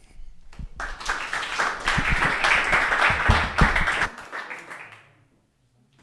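Audience applauding after closing thanks: clapping starts about a second in and dies away around five seconds. A couple of low thumps sound in the middle of it.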